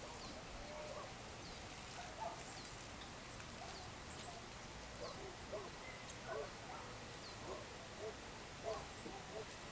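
Birds calling in the evening: short, lower notes repeat irregularly through most of it, with faint, high falling chirps scattered throughout, over a steady background hiss.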